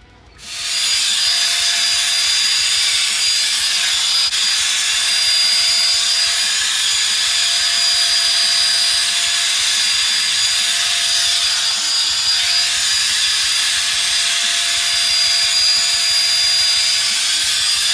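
Hot air brush (a round-brush hair dryer) blowing as it is worked through hair: a loud, even rush of air with a steady motor whine. It starts about half a second in.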